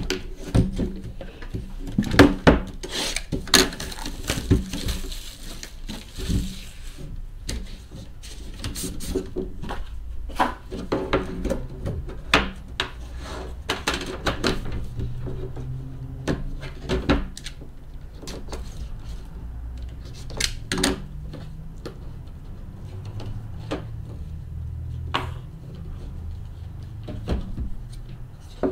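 A sealed trading-card hobby box being opened by hand: a run of clicks, knocks and rustles as the packaging is handled, with a longer stretch of rustling about four to seven seconds in, then cards in a cardboard sleeve slid out and handled.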